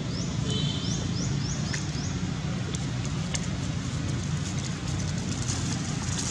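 Steady low rumble of outdoor background noise, with a quick run of about five short, high rising chirps in the first two seconds and a few faint dry-leaf crackles.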